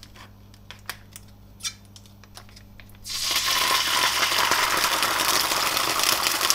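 A few light crinkles and clicks from a foil sachet, then about three seconds in curry paste hits hot peanut oil in a wok and starts sizzling loudly and spitting.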